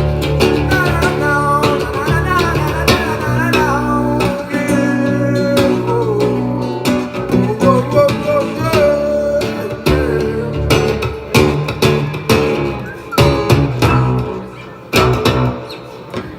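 Band music: an instrumental passage led by guitar, with bending guitar notes in the first few seconds, over bass guitar.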